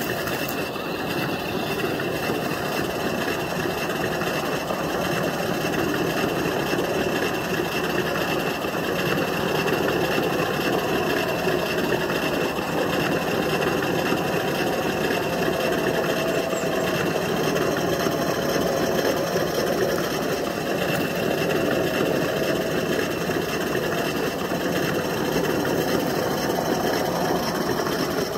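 Radio-controlled scale crawler trucks running slowly over snow: a steady mechanical whirring drone from their motors and drivetrains, wavering a little in pitch with the throttle.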